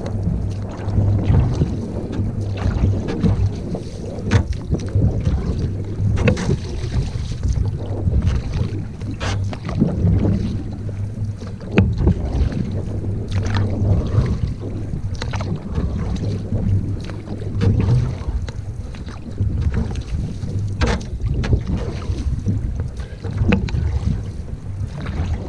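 Canoe being paddled, with short splashes and knocks every second or two over a steady low rumble of wind on the microphone.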